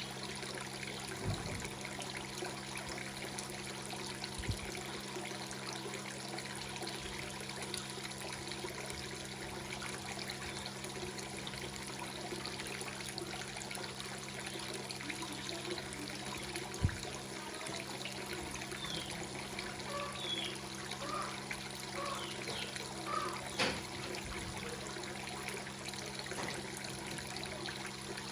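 Water trickling and splashing steadily into a fish pond, with a steady low hum underneath and a few short high chirps in the second half.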